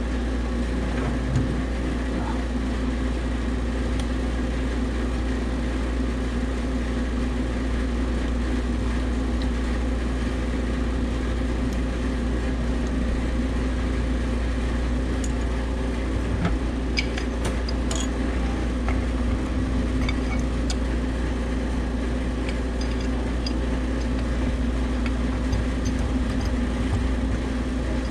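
Pipe-freezing machine's refrigeration unit running with a steady hum while it holds an ice plug in a water line. A few light clicks a little past halfway.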